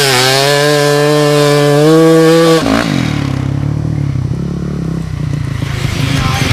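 Dirt bike engine revving hard and climbing slowly in pitch under load on a steep gravel hill climb. About two and a half seconds in the high revs cut off abruptly, leaving a lower, rougher engine sound.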